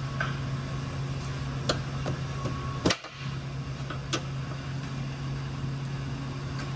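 A few sharp metallic clicks and knocks from a hand wrench working the engine mount-to-K-member bolts, over a steady low hum. The loudest knock comes about three seconds in.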